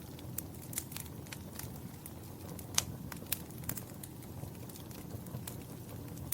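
Wood fire burning in a fireplace: a steady low rumble of the flames with irregular sharp crackles and pops, the loudest pop a little before three seconds in.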